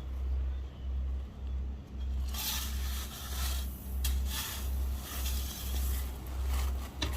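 Wind buffeting the microphone in uneven gusts, with stretches of gritty scraping in the middle: two spells of a couple of seconds each, with a few sharp ticks.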